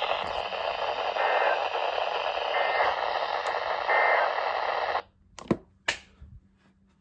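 NOAA Weather Radio receiver hissing with heavy static at the end of an alert broadcast, with three short evenly spaced data chirps of the EAS end-of-message code sounding through the hiss. The radio audio cuts off suddenly about five seconds in, followed by two sharp clicks.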